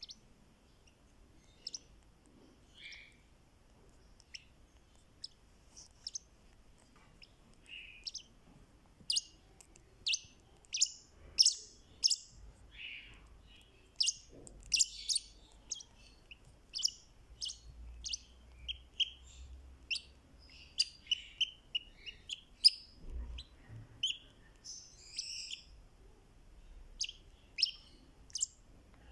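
Fischer's lovebird chirping: short, sharp, high-pitched chirps, scattered at first and then coming thick and fast from about a third of the way in.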